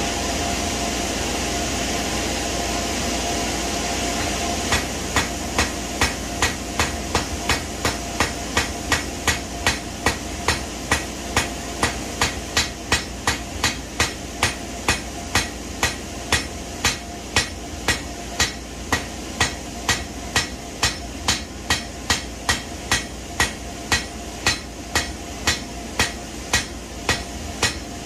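Hand hammer striking hot steel on an anvil to spread a forged leaf, in a steady rhythm of about two blows a second, starting about five seconds in. A steady rushing background noise runs beneath.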